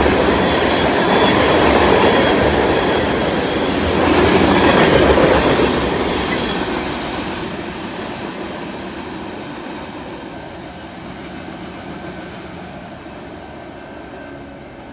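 Freight train of tank cars rolling past at close range on the main line, then fading steadily from about six seconds in as the tail end moves away down the track.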